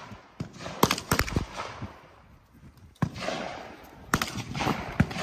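Gunshots: several single shots at irregular spacing, some close together about a second in and others a second or so apart later.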